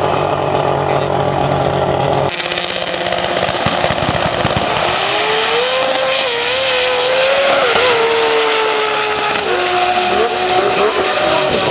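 Turbocharged drag racing car's engine running hard, its pitch stepping down twice in the second half as it changes gear.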